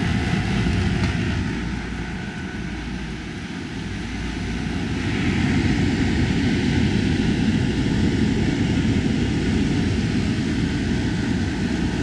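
Self-contained reverse-cycle marine air conditioners running under test: a steady whoosh and hum of their blowers and compressors. The level drops about two seconds in and comes back up about five seconds in.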